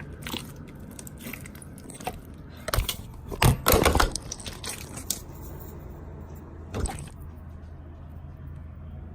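Slime being squished and mixed together into one big mass, making wet clicks and pops, with the loudest run of pops about a third of the way in and another burst about two-thirds through.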